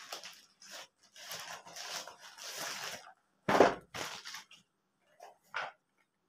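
Plastic courier mailer bag rustling and crinkling as a cardboard product box is pulled out of it, then the box knocks down onto the table with a loud thud about three and a half seconds in, followed by a few lighter knocks as it is handled.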